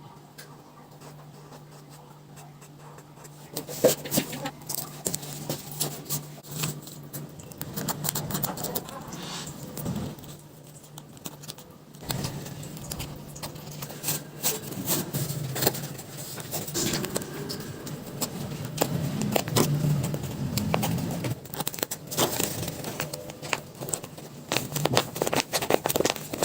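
Paper being handled and worked by hand for a paper squishy: irregular rustling, scraping and small crackling clicks that start about three and a half seconds in, over a faint steady low hum.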